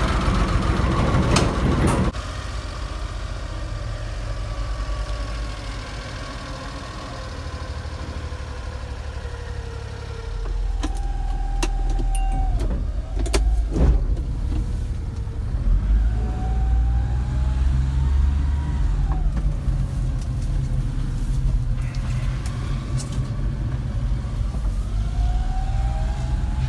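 1991 Honda Acty kei truck's small three-cylinder engine running, loud for the first two seconds, then the truck pulling away with an automatic gearbox, the engine note rising as it gathers speed and dropping back at each shift, a few times over.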